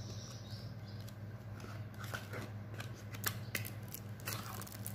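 Cardboard and trading cards being handled: scattered light rustles and clicks as a damage-counter sheet and a stack of Pokémon cards are taken out, over a steady low hum.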